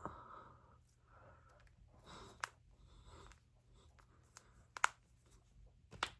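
Human knuckles and finger joints cracking: four sharp pops a second or two apart, the loudest about three-quarters of the way through. Soft rustling of the hands between the pops.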